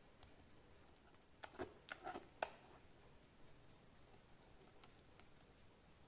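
Near silence broken by a cluster of soft taps and clicks from a whisk and silicone spatula knocking against a glass mixing bowl while chocolate cake batter is stirred, about a second and a half in, the last tap the loudest.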